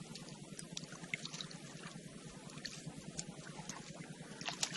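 Faint water sounds, with small splashes and trickles over a steady low hum. A louder rushing noise comes in right at the end.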